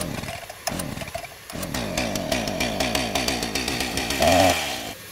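A power saw running loudly with rapid clattering and shifting pitch, with a brief louder tone about four seconds in.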